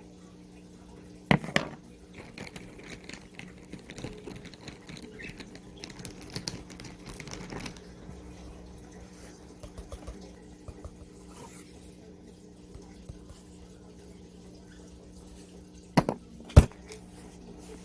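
Drawing and handling noises: irregular scratchy rustling for several seconds, with two pairs of sharp clicks, one about a second in and one near the end, over a low steady hum.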